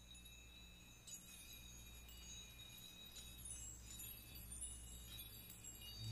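Faint, high chime-like tones ringing and overlapping over a low hum, the soft opening of a music track; a louder, deep-pitched part of the music starts to swell in at the very end.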